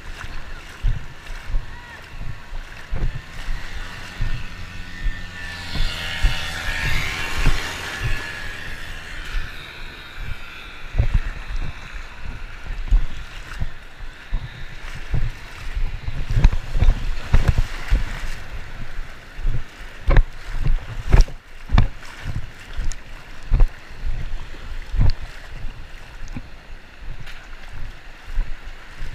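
Shallow beach surf sloshing and splashing around a waterproof action camera held right at the waterline, with frequent dull thumps as water and waves hit the housing.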